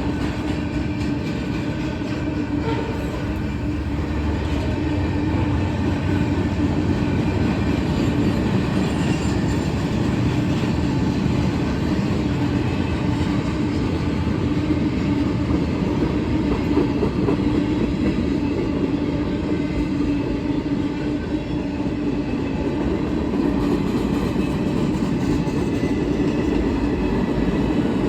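Freight cars of a loaded steel train rolling past at trackside: a continuous rumble of wheels on rail with a steady tone over it.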